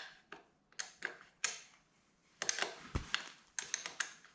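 Metal wrench clicking and clinking on the 11 mm chain-adjuster bolts and lock nuts of a dirt bike's swingarm, in short irregular runs of sharp clicks with brief pauses, busiest past the middle.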